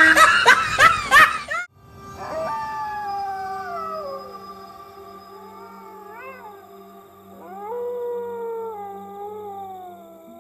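Excited shrieking voices cut off suddenly under two seconds in. Then a dog howls in two long wails that slide slowly down in pitch, over a low steady hum.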